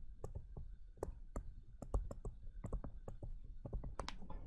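Pen stylus clicking and tapping on a tablet while handwriting words: an irregular run of short clicks, several a second.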